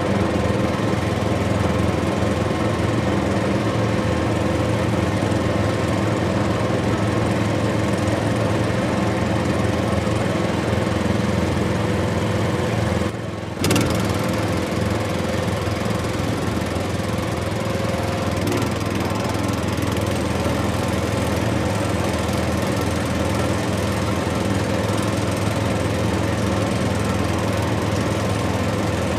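Heavy diesel engine of construction machinery running steadily at a constant pace, with a brief drop in level about thirteen seconds in.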